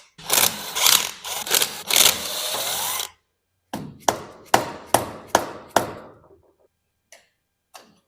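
Tool work on a Honda CL200 motorcycle engine being torn down: about three seconds of rough, loud mechanical rattling, then, after a short pause, six sharp taps with a ringing tail, and two faint clicks near the end.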